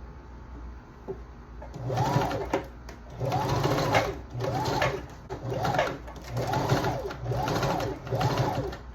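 Janome sewing machine stitching a hair weft onto a wig cap in short stop-start runs, about seven in a row. The motor speeds up and slows down on each one.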